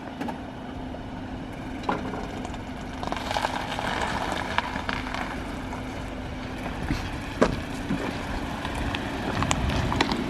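Small automatic car's engine running with a steady low hum, and a rushing noise that grows about three seconds in as the car gets moving, with a few sharp clicks and knocks.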